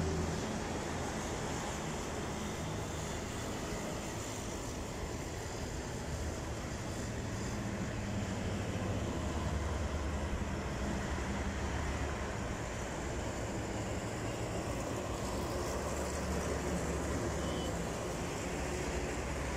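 Steady outdoor noise of distant road traffic, a low rumble that swells slightly about halfway through.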